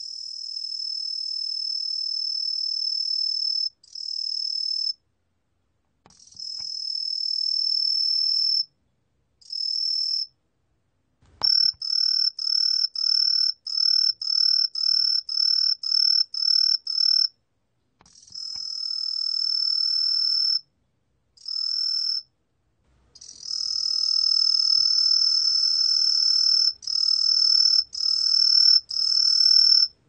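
Green pine cricket (Truljalia hibinonis) singing at 18 °C: a high-pitched continuous trill held for several seconds at a time with brief pauses. For several seconds in the middle the song breaks into short chirps at about two a second.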